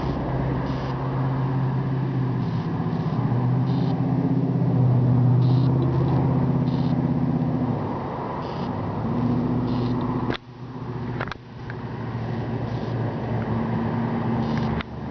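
A motor vehicle engine running with a steady low hum whose pitch shifts slightly, broken by sharp clicks and brief dropouts about ten and eleven seconds in and again near the end.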